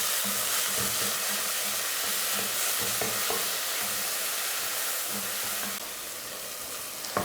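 Chopped tomato and sliced onions sizzling in hot oil in a pressure cooker while being sautéed and stirred. The sizzle drops a little near the end.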